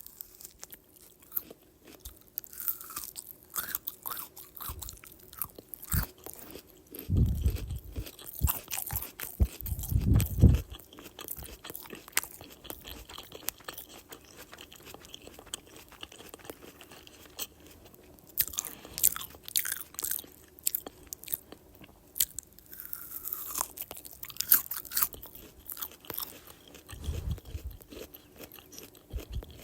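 Close-up biting and chewing of an apple: crisp, wet crunches and crackles, with a few low thuds now and then.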